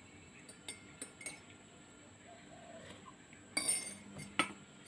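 A few light taps of a metal fork on a plate, then about three and a half seconds in a metal spoon clinks and rings against a ceramic coffee mug, with a sharp clink near the end.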